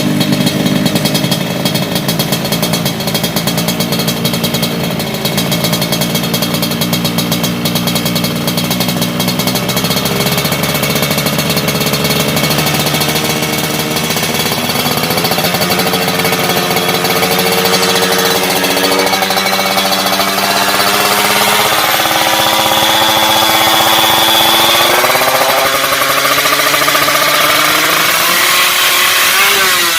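Yamaha two-stroke motorcycle engine fitted with an RX-King cylinder, running with a rattly, buzzing note. Its pitch climbs slowly, then steps up sharply about 25 seconds in.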